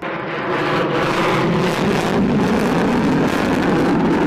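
Jet noise from a B-1B Lancer's four turbofan engines as it flies overhead: a loud, steady rushing sound.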